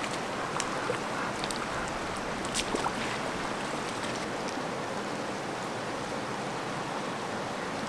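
Small mountain stream flowing, a steady rush of water, with a few faint clicks in the first three seconds.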